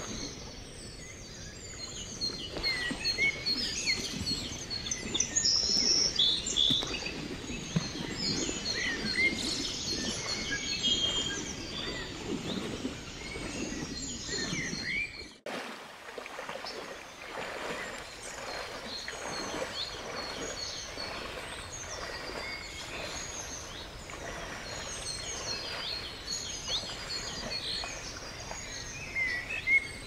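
Many small birds chirping and calling over the steady rush of a shallow, stony river. The background breaks off abruptly about halfway through, then resumes.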